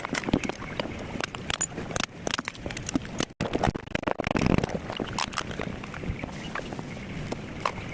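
Irregular clicks, taps and light knocks of small parts and tools being handled during an exhaust fan repair, with a short cluster of louder knocks about four seconds in.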